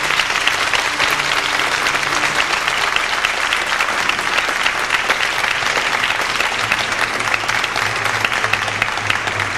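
Theatre audience applauding steadily as the curtain comes down at the end of an act.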